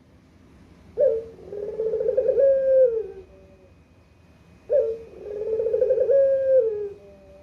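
Barbary dove (puter) cooing: two long rolling coos, each opening with a sharp note and falling away at the end.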